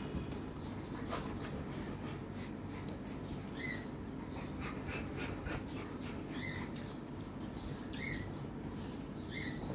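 Fingers mashing and mixing rice with fried red amaranth leaves on a steel plate: soft sticky clicks and squelches. A few short high squeaks are spread through, over a steady low hum.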